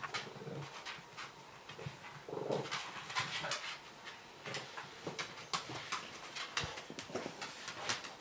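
Border Terrier adult and puppy play-fighting on a tiled floor: claws clicking and scrabbling on the tiles, with short vocal sounds from the dogs that are loudest about two and a half seconds in.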